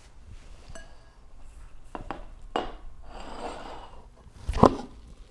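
White ceramic bowl slid and knocked across a wooden floor, with scrapes and clinks, then a loud heavy knock near the end.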